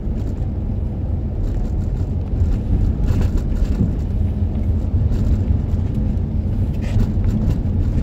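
Car driving on a wet road, heard from inside the cabin: a steady low rumble of engine and tyres, with a few short hisses about three seconds in and near seven seconds.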